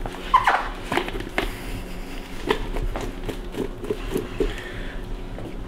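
Light clicks and knocks as a plastic pitcher of pineapple chunks is handled and pineapple is dropped into a bowl, with a quick run of soft taps in the middle, over a low steady hum.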